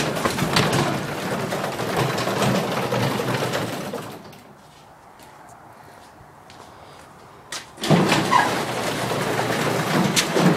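Garage door running on its opener, with a steady rattling clatter. It stops about four seconds in and starts moving again nearly four seconds later.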